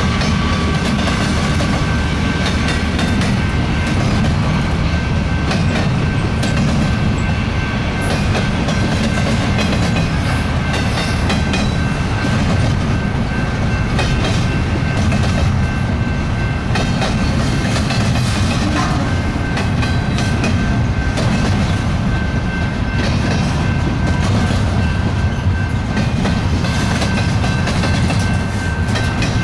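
Double-stack intermodal freight train's well cars rolling past at speed: a steady, loud rumble of steel wheels on rail with irregular clacking over rail joints and a thin, steady high ring over it.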